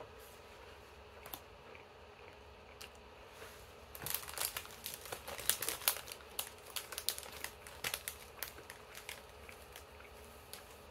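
Clear plastic sandwich wrapper crinkling as it is handled, pulled open and the sandwich slid out. A few faint clicks at first, then dense crinkling from about four seconds in that thins out near the end.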